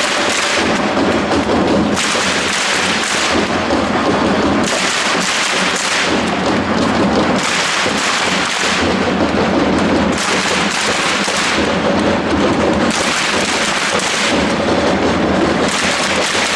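A large stadium crowd of football supporters chanting and clapping in rhythm. The sound swells and falls back every second or two.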